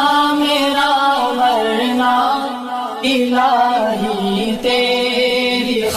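A man singing a devotional Urdu nasheed, drawing out long, wavering notes between the lines of the refrain.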